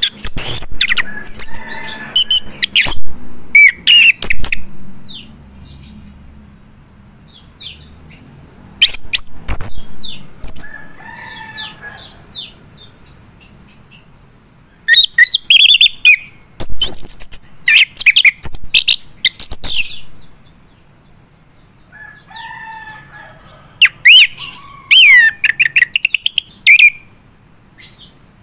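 Male chestnut-capped thrush (anis kembang) singing: loud bursts of rapid, sharp whistled notes and trills, coming in four spells separated by pauses of a few seconds.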